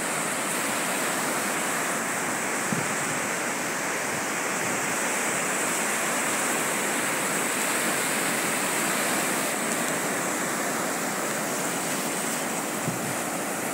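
Ocean surf breaking and washing up a sandy beach: a steady, unbroken rush of waves.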